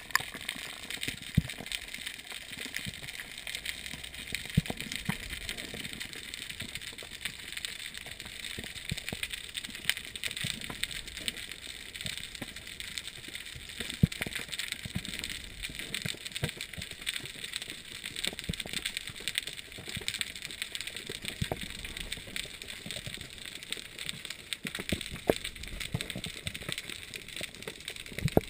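Underwater reef ambience through a camera housing: the steady, dense crackle of snapping shrimp, with a few sharper knocks now and then.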